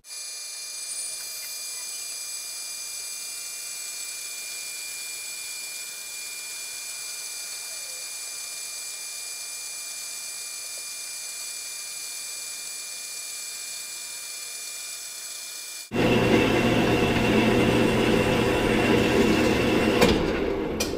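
Horizontal metal-cutting bandsaw with a new blade running and cutting through a 2-inch steel bar, a steady sound with a high ringing note. About three-quarters of the way through it turns abruptly louder and rougher, with a low hum, and it fades away near the end.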